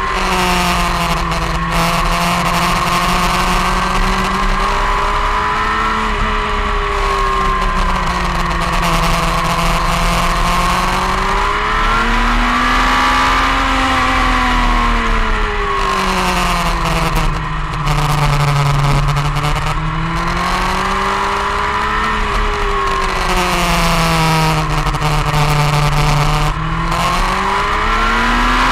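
Sport motorcycle engine heard from an onboard camera, its pitch rising and falling in slow smooth waves every five or six seconds as the revs build on the straights and drop into the corners, over a steady rush of wind on the microphone.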